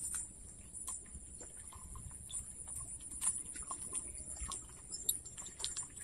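Insects chirring steadily in a high, even drone, with scattered soft clicks and ticks over it.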